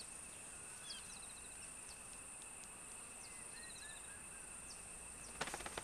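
Faint savanna bush ambience: birds chirping, with short whistled notes and quick trills, over a steady high insect drone. A brief run of soft clicks or rustling comes near the end.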